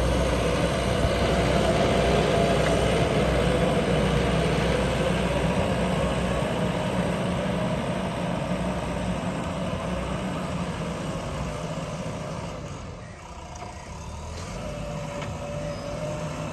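JCB backhoe loader's diesel engine running, its pitch wavering as the revs change; it eases off and quietens about thirteen seconds in, then picks up again.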